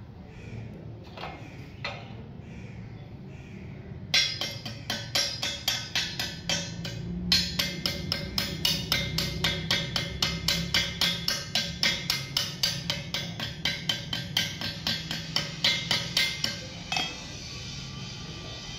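Chipping hammer tapping rapidly on a fresh stick weld on a steel pipe, knocking off the slag. The sharp metallic strikes come about four a second, starting about four seconds in, with a short pause near seven seconds and a stop shortly before the end.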